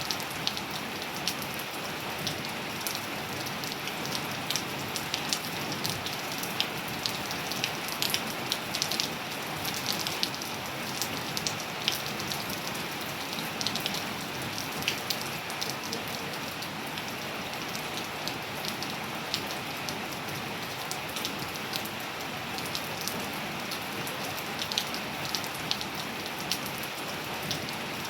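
Steady rain falling, an even hiss with many sharp drip ticks and splats of individual drops landing on hard surfaces.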